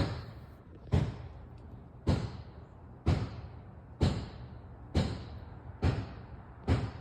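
Heavy banging: eight loud, sharp impacts about a second apart, each ringing briefly before the next strike.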